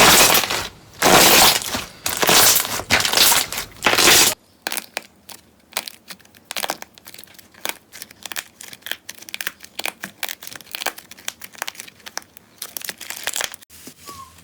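Slime being squeezed and worked by hand: loud crunching squishes for the first four seconds, then a sudden change to a quieter run of many small crackles and pops.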